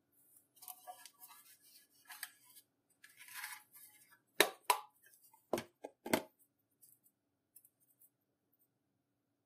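Small hard objects being handled: a light crackly rustling, then about five sharp clicks and knocks close together, and a few faint ticks after.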